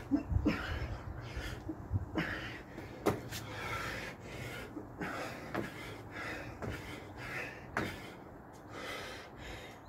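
A person breathing hard from exertion, with a few sharp thuds of hands and trainers landing on patio paving slabs during burpees with push-ups and jump squats.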